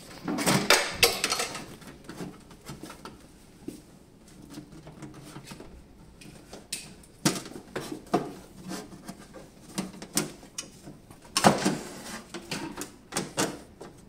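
Clatter of plastic and sheet-metal casing panels on a Draeger Primus anesthesia machine being worked loose and lifted off by hand. There are knocks and clicks in bunches, a busy run about half a second in, a few single knocks in the middle and another run near the end.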